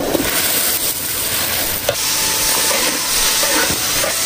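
Soup boiling vigorously in a wok: a steady bubbling hiss, with a few light clicks of a metal ladle against the wok, one right at the start and one about two seconds in.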